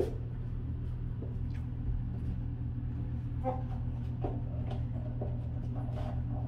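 High-heeled shoes clicking on a hard tiled floor, faint irregular steps every half second to a second, over a steady low hum.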